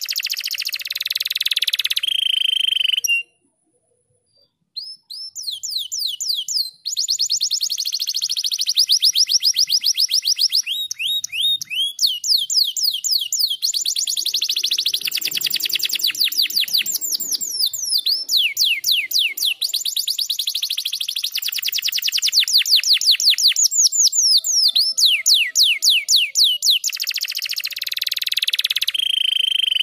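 Domestic canary singing long, rapid trills of fast repeated whistled notes, several per second, shifting from one roll to the next. The song stops about three seconds in and picks up again a second and a half later.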